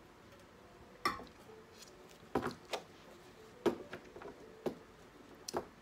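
Small objects handled on a tabletop: about ten light, sharp clicks and taps at uneven intervals, the sort made by handling a deck of tarot cards and setting things down.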